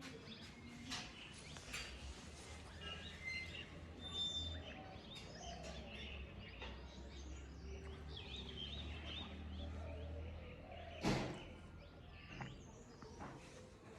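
Small birds chirping and calling in a morning chorus, many short chirps overlapping, over a low steady hum. A single sharp knock stands out about eleven seconds in.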